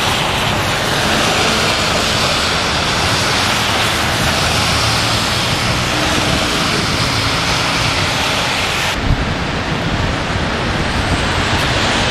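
Steady rushing noise of road traffic and wind. About nine seconds in it changes to uneven low gusts of wind buffeting the microphone.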